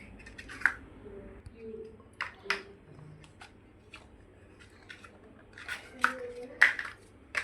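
Plastic building blocks clicking and clattering as pieces are handled and pressed together, in a series of irregular sharp clicks, the loudest cluster near the end.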